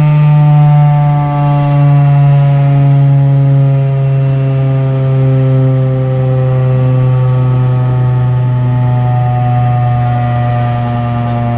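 Darley STH-10 outdoor warning siren sounding a loud, steady tone rich in overtones. Its pitch slowly and evenly falls and it grows a little quieter, as the siren winds down at the end of its Alert signal.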